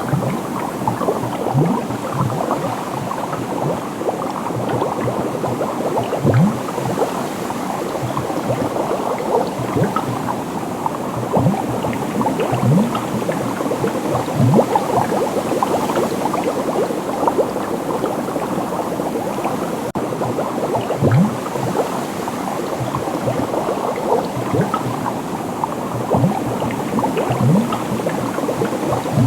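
Dense, continuous bubbling of liquid: a constant stream of small bubble pops, with every second or two a deeper bloop that rises in pitch.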